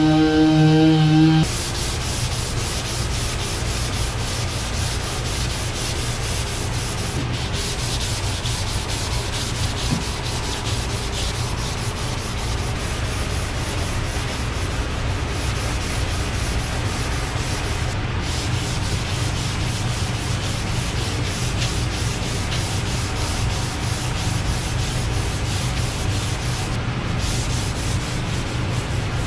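A pneumatic dual-action (DA) sander runs with a steady hum and cuts off about a second and a half in. Then comes hand block sanding: 180-grit paper on a sanding block, rubbed steadily over cured body filler on a car door.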